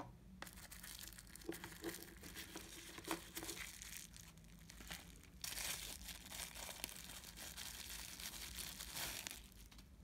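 Plastic bubble wrap crinkling and crackling as it is handled and pulled off a folding knife, busier and louder in the second half and stopping just before the end.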